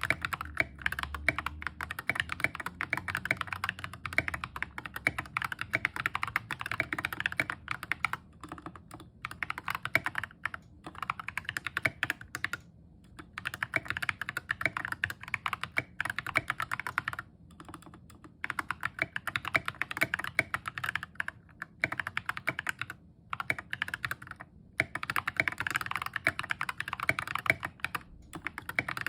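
Continuous typing on a 60% mechanical keyboard, an Epomaker GK61xs with stock Ajazz Banana tactile switches and tall SA-profile keycaps, the case tape-modded. Fast runs of key presses with a few brief pauses between bursts.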